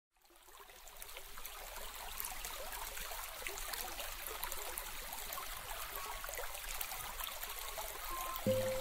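A trickling stream, a steady crackly water sound that fades in over the first second or so. Near the end a sustained musical note comes in.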